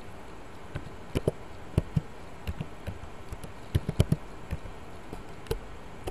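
Typing on a computer keyboard: irregular keystroke clicks in small runs with short pauses, over a low steady hiss.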